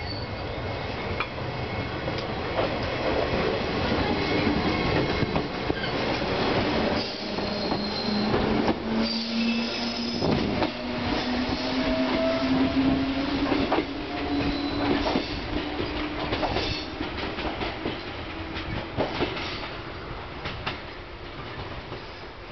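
JR West 105 series two-car electric train pulling away and accelerating past: its traction motors give a low hum that rises steadily in pitch as it gathers speed, and the wheels click over the rail joints. The sound fades as it runs off into the distance near the end.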